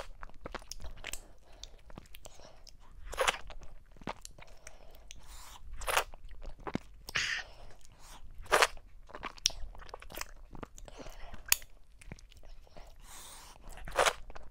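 Close-miked eating of fufu dipped in okra soup, taken by hand: wet chewing and sharp mouth smacks at an irregular pace, with a few louder smacks now and then.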